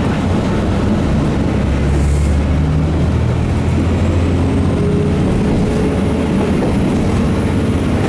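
Diesel railcar running, heard from inside the passenger cabin: a steady low engine drone, with a faint high whine rising from about halfway through.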